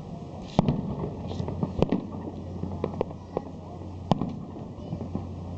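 Aerial fireworks shells bursting in an irregular string of sharp bangs, the loudest about half a second in, near two seconds and about four seconds in.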